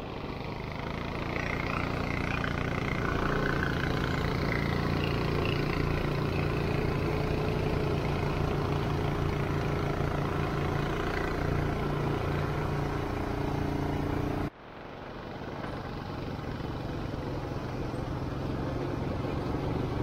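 ATV engine running steadily while under way. The sound breaks off suddenly about 14 and a half seconds in and resumes at once.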